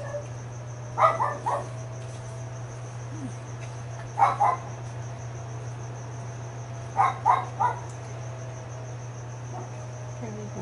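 A steady high-pitched insect trill over a low steady hum, broken three times by short clusters of two or three high yelps, a few seconds apart.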